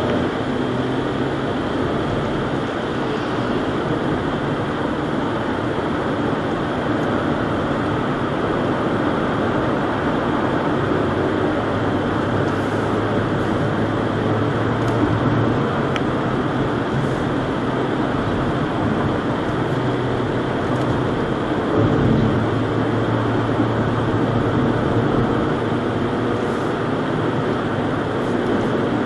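Minivan driving steadily, its engine and tyre noise picked up inside the cabin by a dashcam's built-in microphone, swelling briefly about three-quarters of the way through.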